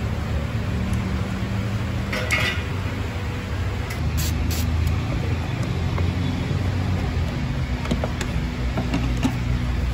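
Metal hand tools clinking a few times, about two seconds in and again around four seconds, as a socket on a long extension is worked on the air-box cover bolts. A steady low rumble runs underneath.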